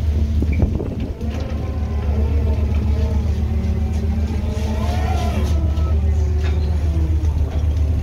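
Tuna purse seiner's engines and deck machinery running with a steady low drone, while a winch hoists the brailer scoop out of the net with a whine that rises and falls in pitch, highest about five seconds in.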